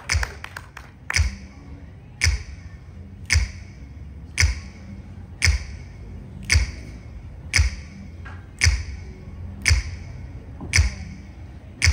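A slow, steady percussive beat: a sharp clap-like hit with a low thump, repeating evenly about once a second.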